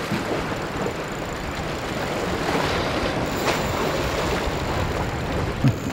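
Steady wind and wave noise, the wind buffeting the microphone, with a brief low thump near the end.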